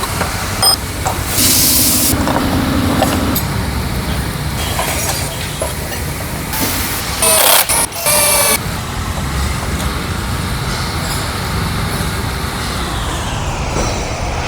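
Workshop noise: a steady low rumble with two loud bursts of hissing, each about two seconds long, one about a second and a half in and one about seven seconds in.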